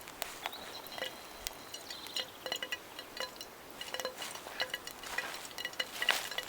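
Light, irregular clinks and taps of a utensil against cookware, each with a brief metallic ring.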